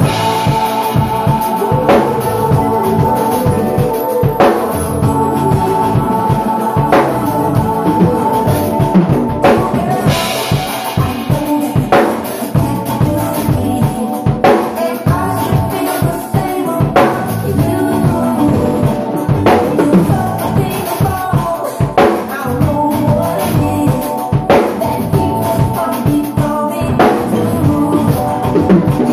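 Acoustic ddrum drum kit played in a steady groove, with bass drum, snare and cymbals, and crash accents about every two and a half seconds. It is played along to the recorded song, whose held melodic tones sit under the drums.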